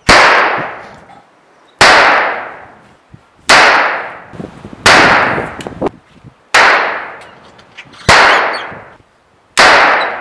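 Revolver gunshot sound effects for a staged film gunfight: seven shots about one and a half seconds apart, each a sharp bang with a long echoing tail that fades out.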